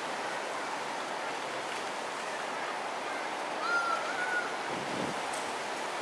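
Steady rushing outdoor background noise, with a short high two-part chirp a little before the four-second mark.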